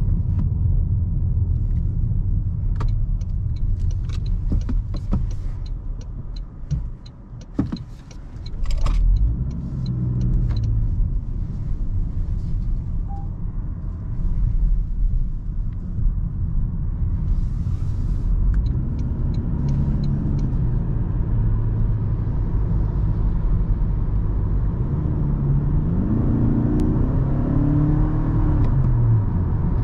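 Toyota Camry XV80 hybrid with its 2.5-litre four-cylinder, on the move: a steady low road and engine rumble. The engine note rises and falls several times. A run of light clicks comes in the first third, with a short dip in loudness just before the engine picks up again.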